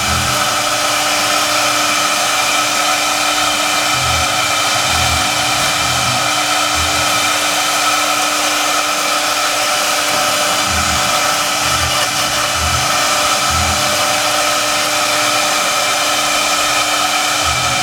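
Spindle of a large CNC foam router running, a steady high-pitched whine over a hiss.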